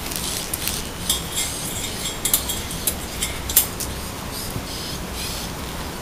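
Havanese puppy moving about behind the bars of a pen, making light clicks and short scratchy rustles. The sharpest clicks come about one, two and three and a half seconds in, over a low steady hum.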